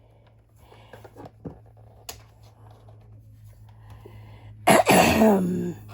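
Small clicks and taps of hands working on a plastic doll body and its screws, then, near the end, a loud, brief sound that slides down in pitch.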